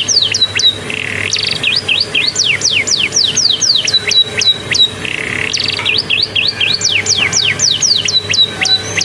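Domestic canary singing a song learned from the bar-winged prinia (ciblek): fast runs of sharply falling whistled notes, about four or five a second. The runs are broken by a short buzzy rasp about a second in and again about five seconds in.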